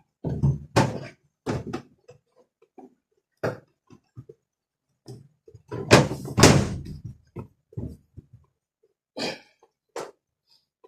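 Irregular knocks and clunks from handling parts of a washing machine under repair. The loudest cluster comes about six seconds in.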